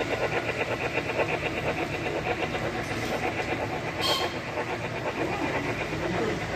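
HO-scale model train rolling past, its freight cars' wheels making a steady rhythmic rattle on the track, with a brief sharp click about four seconds in.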